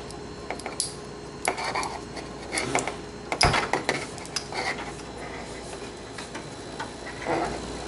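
Handling noise from a solenoid water inlet valve and its tubing: scattered clicks and short rattles of hard plastic and metal parts knocking, with one sharper knock about halfway through.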